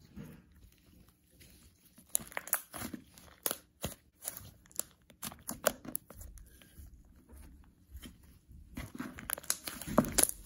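A blob of thick slime being squeezed, folded and poked by hand, making irregular sticky crackles and pops. The sound is quieter for the first two seconds and busiest near the end.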